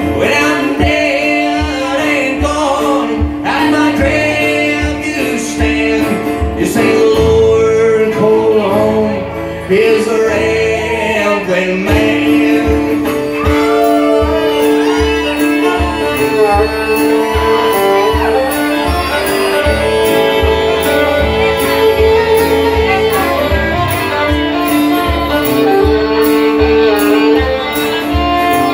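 A live acoustic country duet: a fiddle and a strummed acoustic guitar play an old-time tune. A female and a male voice sing over them in the first few seconds, and then the fiddle carries the melody over a steady double-stop drone.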